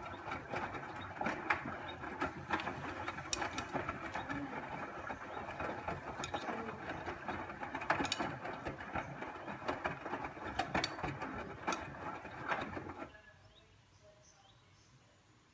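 Busy mechanical rattling and clattering with many small clicks, cutting off suddenly about 13 seconds in.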